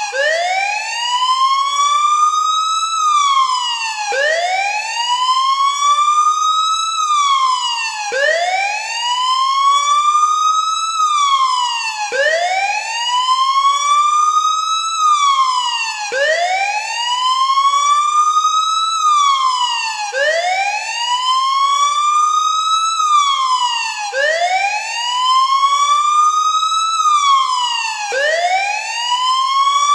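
Siren wailing in a steady cycle: its pitch rises for about three seconds, then drops for about a second, repeating every four seconds.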